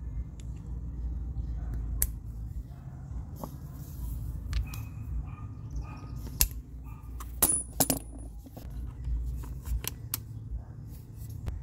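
Steel sockets and adapters clicking and clinking as they are pushed together by hand and seated onto a cordless impact driver: a run of sharp metallic clicks, the loudest pair a little past halfway, over a low steady rumble.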